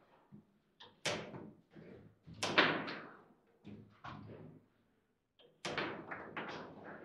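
Table football play: irregular sharp knocks and clacks as the figures on the rods strike the ball and the ball and rods hit the table. The loudest knock comes about two and a half seconds in, with others about a second in and near six seconds.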